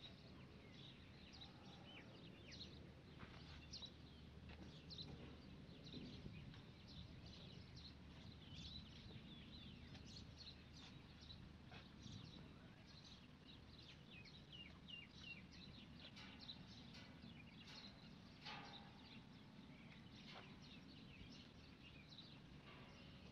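Near silence, with faint birds chirping repeatedly over a low outdoor background hum.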